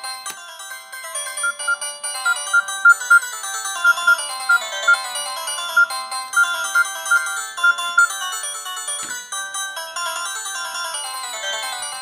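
A Mitsubishi M342i mobile phone playing one of its built-in polyphonic ringtones through its small speaker: a quick, busy tune of several notes at once, thin and without bass. Through the middle, short repeated high notes pick out the melody.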